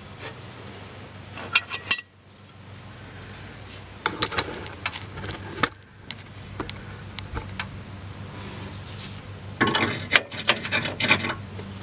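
Three bursts of metallic clinking and scraping as tools are worked against the front suspension: about a second and a half in, again around four to five seconds in, and a longer run near the end. A steady low hum runs underneath.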